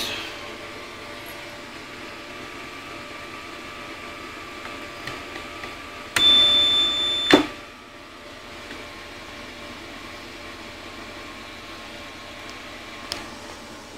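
Steady electrical hum of a vacuum tube tesla coil's power supply rig running. About six seconds in, a loud high-pitched buzz holds for just over a second and ends in a sharp crack. A single click comes near the end.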